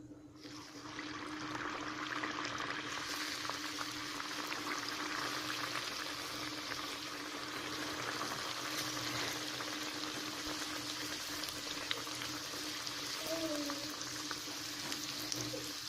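Irachipathil, a meat-filled flatbread pastry, sizzling steadily as it deep-fries in hot refined oil in a kadai. The sizzle starts about half a second in and grows brighter around three seconds in.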